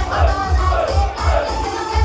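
Live idol pop performance in a club venue: a loud dance track with a heavy, fast kick-drum beat and a vocal line sung over it. The bass beat drops out briefly near the end.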